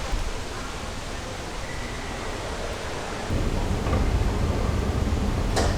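Steady rushing noise, joined about three seconds in by a low rumble that stays to the end.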